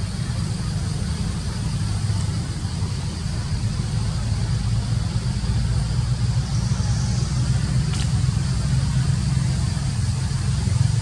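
Steady low rumble with a faint high hiss, and one small click about eight seconds in.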